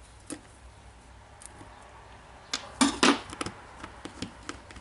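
Small gears clicking and clinking as they are worked by hand into a Makita DDF484 drill's gear assembly: a few light ticks, then a short clatter of clicks about three seconds in.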